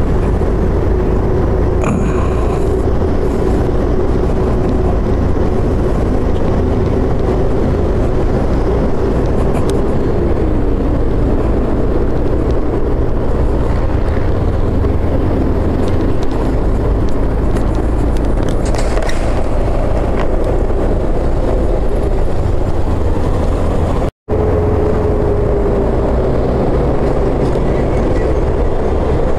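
Motorcycle ridden at low city speed: a steady engine hum under heavy wind rush on the microphone. The engine note dips briefly about a third of the way in, and the sound cuts out for an instant about two-thirds of the way through.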